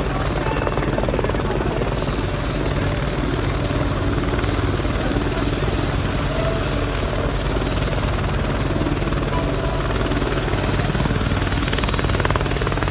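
Boeing AH-64E Apache helicopter running on the ground: a steady high turbine whine over a low, even rotor-and-engine hum.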